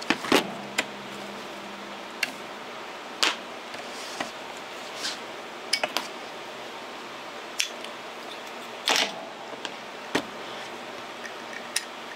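Hands handling a plastic freeskate and small metal flashlights on a cutting mat: about a dozen irregular clicks and knocks over a steady hiss, the loudest near the start and about nine seconds in.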